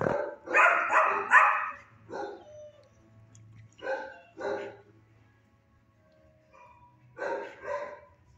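Dog barking repeatedly: a quick run of loud barks in the first two seconds, then a pair of barks about four seconds in and another pair near the end.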